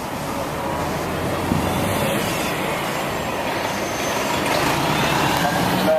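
Busy city-street traffic: a steady wash of engine rumble and tyre noise from passing trucks, buses and cars, with a brief higher tone near the end.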